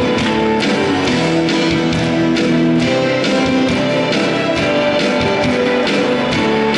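Instrumental intro of a Korean pop song, with strummed guitar over sustained notes and a steady beat, before the vocal comes in.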